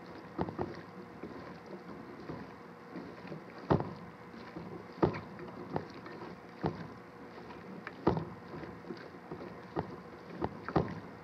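Gloved hands mixing wet, seasoned chicken pieces and vegetables in a stainless steel bowl: soft squelching, with irregular sharp knocks of the pieces against the bowl.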